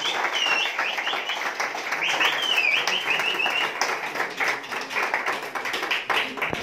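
A small group of people applauding by hand, the clapping running on steadily. Short high-pitched tones come over it in quick runs, about two to three seconds in.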